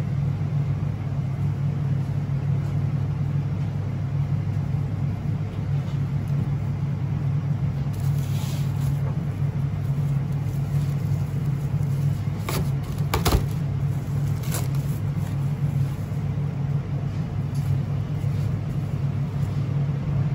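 Steady low machine hum, with a few short crinkles and clicks of plastic cling film being handled in the middle stretch.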